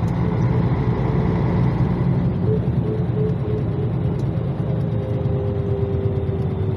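Cabin noise of a Karosa LC735 coach on the move: a steady low diesel engine and road rumble, with a faint whine that sinks slightly in pitch in the second half.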